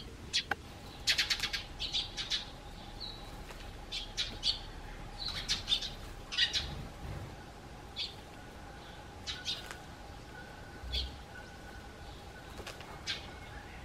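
Eurasian tree sparrows chirping in short, clustered bursts, with the soft flutter of a sparrow dust-bathing in gravel.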